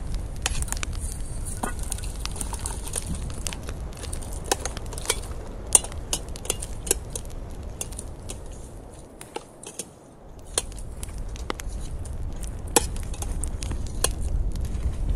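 Wood campfire crackling, with sharp pops scattered irregularly over a steady low rush of the burning fire; the rush dies down briefly about two-thirds of the way through.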